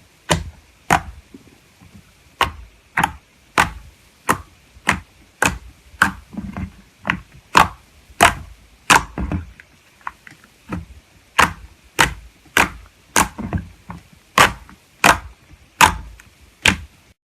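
Slime being worked by hand, making a steady run of sharp clicking pops, about three every two seconds, that stop just before the end.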